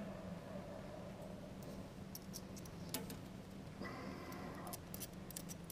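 Faint light clicks and taps from hands working small bolt hardware, over a steady low hum. About four seconds in, a faint higher tone lasts about a second.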